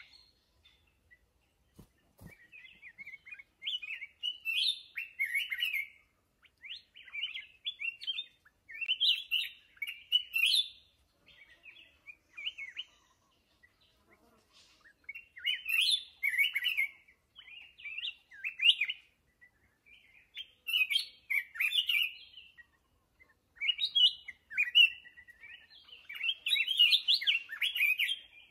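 Black-crested bulbul singing: short warbling phrases of about one to two seconds each, repeated again and again with brief pauses between them.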